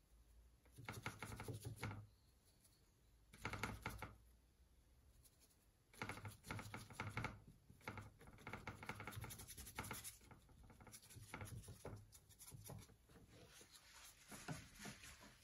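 Paintbrush working oil paint on the painting panel and palette: faint, scratchy brush strokes in bursts of a second or so, with short pauses between them.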